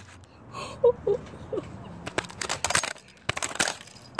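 A hammer striking a laptop's keyboard and casing, the plastic cracking and breaking apart. There are several sharp cracking hits in the second half, in quick clusters.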